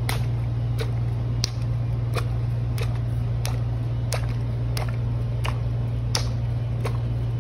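A steady low hum with a sharp, even click about every two-thirds of a second, like a ticking rhythm.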